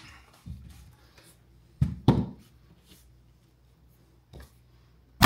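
Short knocks on hardwood flooring boards as they are set in place at a pneumatic flooring nailer: two close together about two seconds in, with a few fainter knocks around them.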